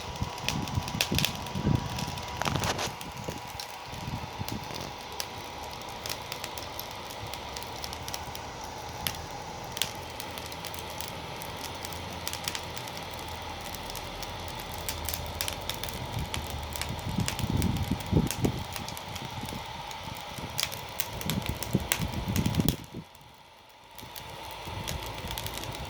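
Small hair-dryer fan motor, run off an old laptop battery, blowing air onto burning charcoal in a grill: a steady motor whine over a rush of air, with the charcoal crackling and snapping throughout. The sound drops away for about a second near the end, then comes back.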